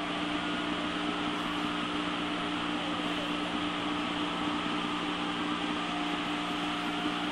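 Steady hiss with a constant low hum from a fire-department dispatch radio recording between transmissions.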